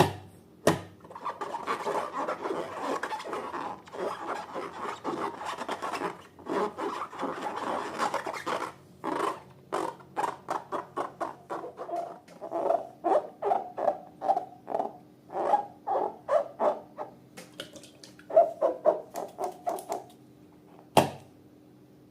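Slime being worked by hand in a container: a continuous rough scraping stir, then a long run of short separate strokes, about two to three a second, with a sharp click near the start and another near the end.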